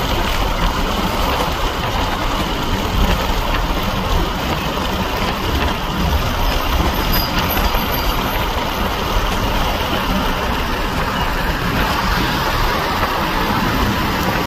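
Freight train flatcars rolling past: a steady rumble of wheels on rails, even and unbroken throughout.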